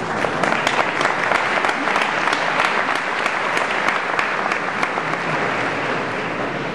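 Crowd applauding, a dense patter of many hands clapping that swells at the start and slowly eases off near the end.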